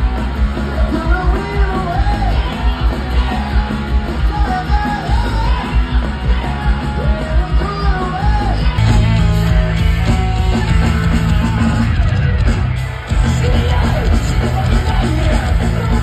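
Live rock band played loud through a festival PA and heard from within the crowd: a singer's melody over drums and guitars. The band comes in fuller and louder about halfway through, breaks off briefly about three seconds before the end, then carries on.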